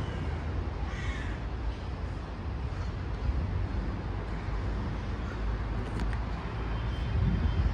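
Steady low outdoor rumble, with one short, harsh animal call about a second in.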